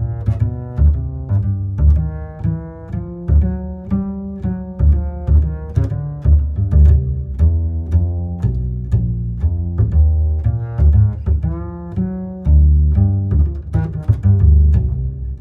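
Instrumental background music: a deep bass line pulsing under a melody of quickly changing notes.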